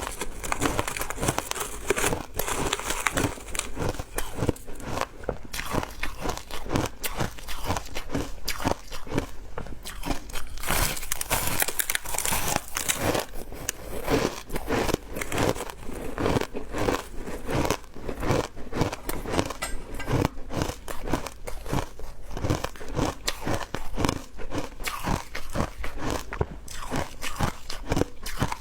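Close-miked crunching of hard ice being bitten and chewed, a dense run of irregular sharp cracks and crackles with no pause.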